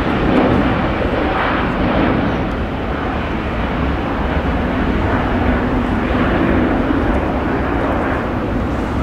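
Airbus A380's four jet engines at climb-out thrust just after takeoff: a steady, loud, deep rumbling jet noise.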